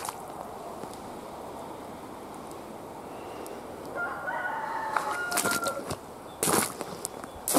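Footsteps crunching on an icy driveway, three steps in the second half, the loudest sounds here. A rooster crows once in the background about four seconds in.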